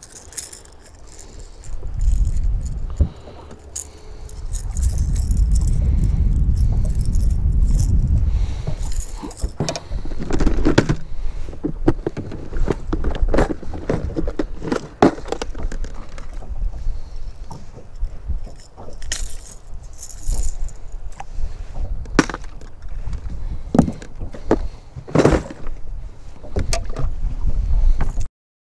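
A low rumble for several seconds, then a long run of irregular clicks, clacks and rattles: plastic tackle boxes and lures with treble hooks being handled on a bass boat's deck.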